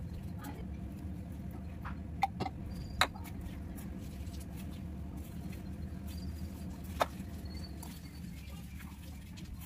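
Hands mixing and squeezing wheat-flour dough in a stainless-steel kadai, with a soft scratchy rubbing over a steady low hum. There are sharp taps against the pan about two and three seconds in and again near seven seconds.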